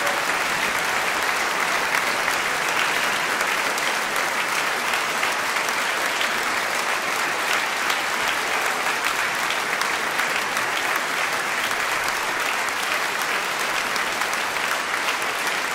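Audience applauding: dense, even clapping at a constant level.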